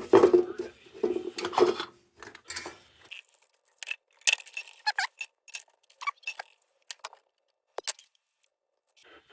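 Small metal parts clinking and rattling as they are rummaged through by hand, a dense clatter in the first two seconds, then scattered single clicks.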